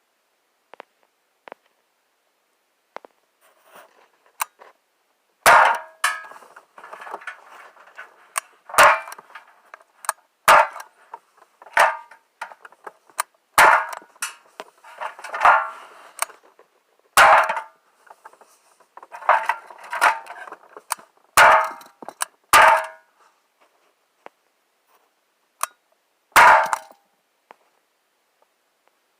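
Gamo P-430 CO2 pistol fired about a dozen times, a sharp pop every one to two seconds, each with a brief ringing after it.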